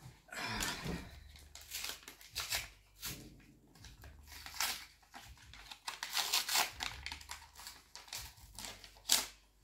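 A paper envelope torn open and a letter pulled out and unfolded: irregular tearing and rustling of paper, with a broader scrape in the first second.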